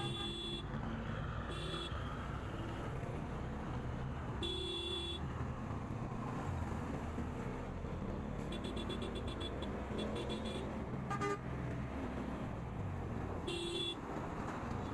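Motorcycle running at a steady cruising speed with wind and road noise, cut by about seven short horn honks, several bunched together in the middle.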